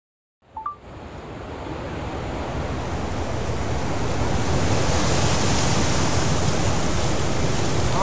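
Ocean surf washing at the foot of a sea cliff, heard from the clifftop as a steady rushing mixed with wind buffeting the microphone; it grows gradually louder over the first few seconds.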